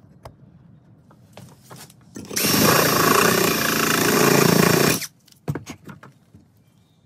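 A power tool runs loud for about two and a half seconds, starting a little over two seconds in and stopping abruptly. Light clicks and knocks of parts being handled come before and after it.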